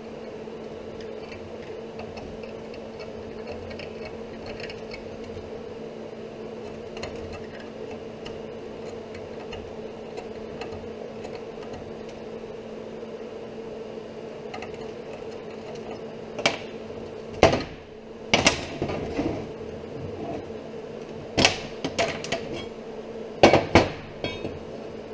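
A steady machine hum with two low tones throughout. About two-thirds of the way in come a series of sharp metal clanks and clicks, a few in quick succession: steel locking C-clamp pliers being released and laid down, and steel pieces handled on a steel workbench.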